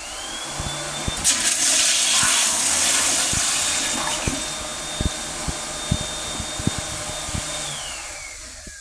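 Commercial wall-hung toilet flushing through its flush valve. A whistle rises as it opens, then water rushes loudly into the bowl about a second in. A steady high whistle runs under the rushing water and glides downward near the end as the flow dies away.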